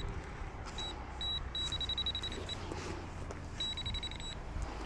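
Metal detector beeping: a single high-pitched tone, first in short beeps, then held for about a second, and held again near the end. It is signalling metal close to the coil, here a 20-cent coin in the dug sand.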